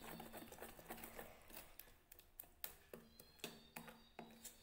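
Faint, uneven clicks of a metal spoon knocking against a steel bowl while stirring thick gram-flour (besan) batter.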